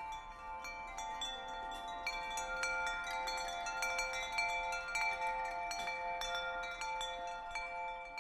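Wind chimes ringing: many light metal strikes a second whose clear tones ring on and overlap.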